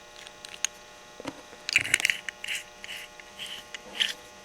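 Small clicks and short scraping, rustling handling noises of Mini Maglite parts as its head and reflector are swapped and fitted by hand, over a steady electrical hum.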